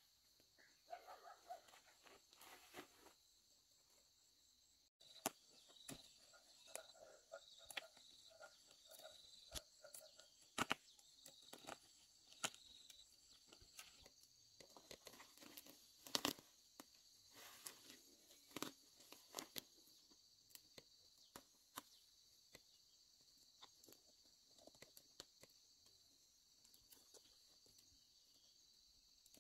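Faint rustling of leaves and scattered sharp snaps of stems as shoots are picked by hand from a tree's branches. Under it runs a steady, faint, high insect drone.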